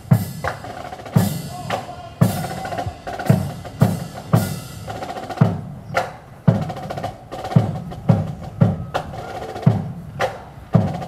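Military marching band playing a march for the pass in review: a strong drum beat about once a second under steady held tones.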